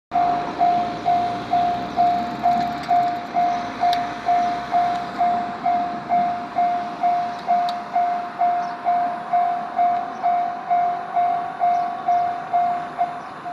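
Japanese level-crossing warning bell ringing its repeated single-tone 'kan-kan', about two strikes a second, the signal that a train is approaching. It eases off a little toward the end.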